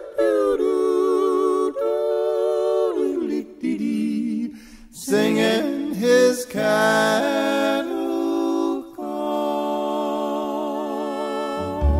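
Music: a wordless, largely unaccompanied sung vocal with vibrato, long held notes sliding between pitches. A low bass note comes in near the end.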